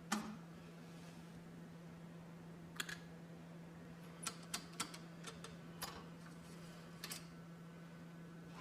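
Scattered light clicks and taps, a sharp one at the start and then about a dozen from about three to seven seconds in, over a steady low hum.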